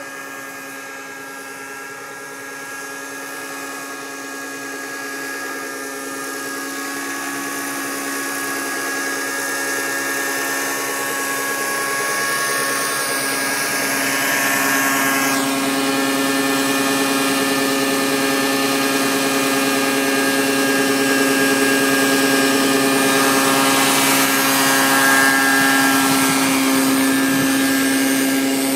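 Radio-controlled scale MD 500 helicopter flying, its motor and rotors giving a steady whine. The whine grows louder over the first dozen seconds as the helicopter comes down close, then holds steady while it hovers low.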